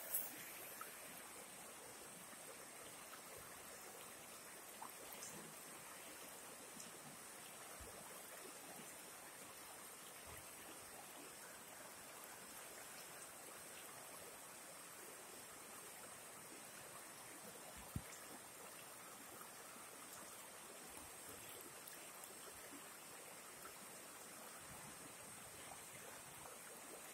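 Faint, steady rushing of a swollen, muddy river in flood. Two brief clicks stand out, one right at the start and another about two-thirds of the way through.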